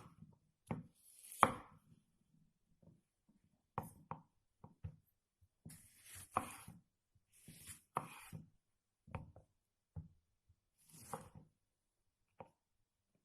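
Knife cutting food on a cutting board in irregular strokes, roughly one a second.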